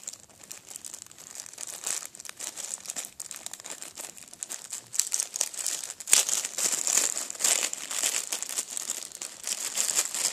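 Thin clear plastic bag crinkling as it is handled and opened to get at strips of paper-taped resistors. The crackling grows louder about six seconds in.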